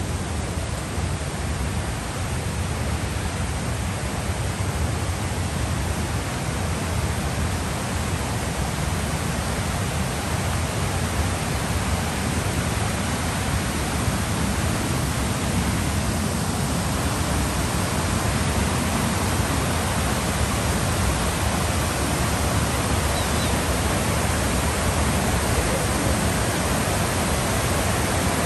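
Large waterfall pouring down a broad sloping face: a steady rush of falling water, slowly getting louder.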